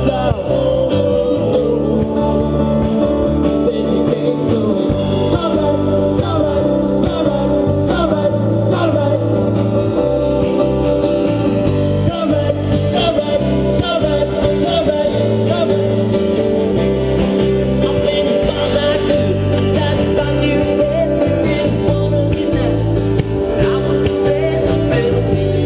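Live band playing a rock song with acoustic and electric guitars, and a man singing over it.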